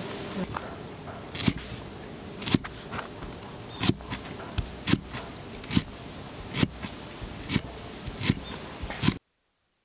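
Cleaver slicing lemongrass on a wooden chopping board: sharp knocks of the blade striking the board, about one a second, that cut off suddenly near the end.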